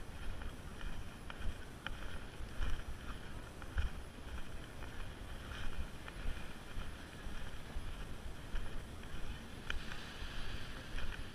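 Wind buffeting the microphone: a gusty low rumble that rises and falls unevenly, with a few light ticks scattered through it.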